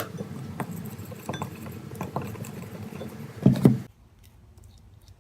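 Spoon clinking and scraping in a small bowl, stirring maida flour into ghee, in irregular taps. A sharp click comes at the start and a heavier knock a little after three seconds, then the sound cuts off suddenly.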